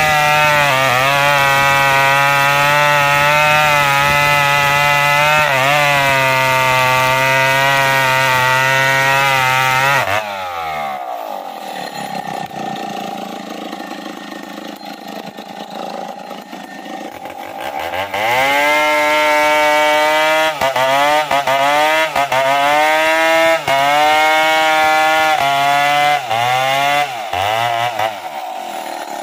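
Chainsaw cutting into the base of a standing tree trunk at full throttle, its engine note dipping briefly under load in the cut. About ten seconds in it drops to idle for several seconds, then revs up and cuts again with repeated quick throttle drops and rises, falling back to idle near the end.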